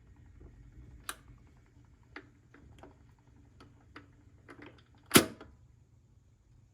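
Scattered light mechanical clicks from a BSR McDonald 4800 record changer, ending in one loud clack about five seconds in, over a low hum that fades out early on.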